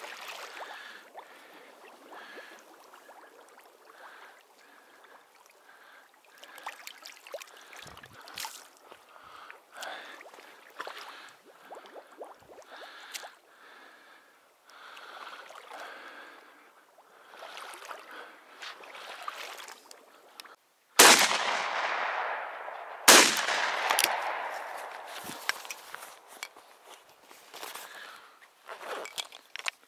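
Two shotgun shots from an IZh-43 double-barrelled shotgun, about two seconds apart, each a sharp crack with a long echo dying away. Only quieter scattered rustling comes before them.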